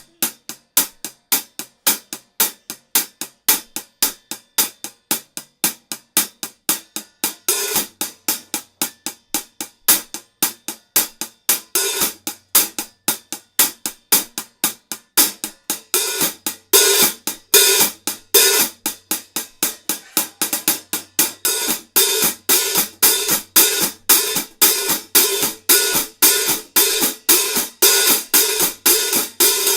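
14-inch Zildjian K hi-hat cymbals struck in a steady rhythm, about three strokes a second. The first several seconds are crisp closed strokes that die away quickly; from about eight seconds in they are played looser, the cymbals ringing on between strokes and getting louder.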